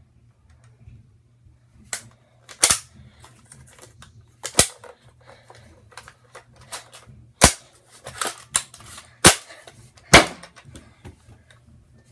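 Plastic toy foam-dart blaster being reloaded and handled: a run of sharp plastic clacks and clicks, about seven loud ones spread unevenly, beginning about two seconds in.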